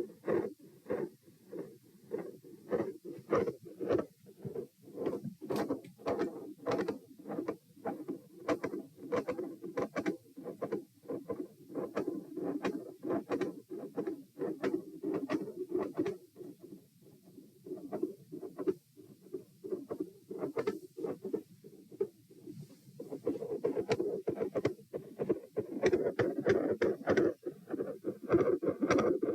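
Heart sounds recorded at the chest: a steady run of heartbeats whose loudness swells and fades in a pronounced pattern with breathing. The beats grow louder over the last few seconds.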